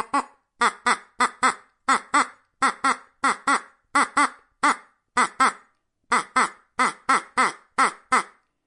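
Ducks quacking: a long run of short quacks, mostly in pairs, about three a second.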